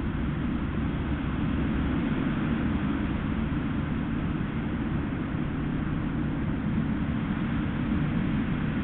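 Gale-force wind on the outdoor camera's microphone: a steady low rumble with a hiss above it.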